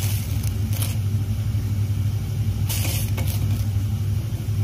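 A plastic spoon stirring melting cream in a stainless steel bowl, with a few short scrapes against the metal, over a steady low hum.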